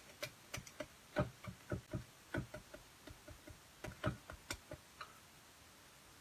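A clear acrylic stamp block tapped again and again onto a toner stamp pad in its plastic case: a run of irregular light clicks and knocks that stops about five seconds in.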